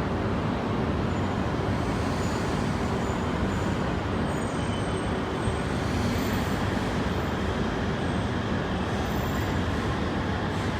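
Steady rumble and hum of a Shinkansen train at the station platform, even in level with no distinct clanks or horn.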